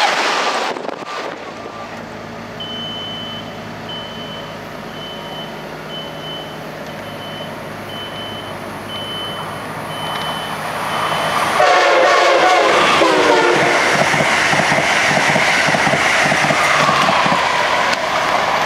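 Amtrak electric passenger trains on the Northeast Corridor: the tail of a train passing close, dying away about a second in. About twelve seconds in, a train horn sounds with its pitch falling, followed by the loud steady rush of an Acela Express high-speed trainset running through the station. A high beep repeats about twice a second during the quieter middle stretch.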